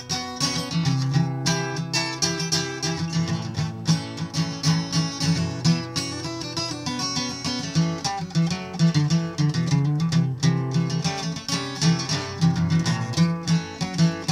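Solo acoustic guitar with a capo, picked and strummed in a steady rhythm: an instrumental passage with no singing.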